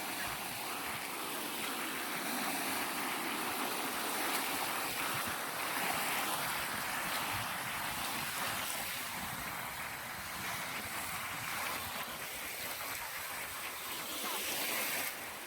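Ocean surf: waves washing in as a continuous rushing hiss, swelling gently now and then.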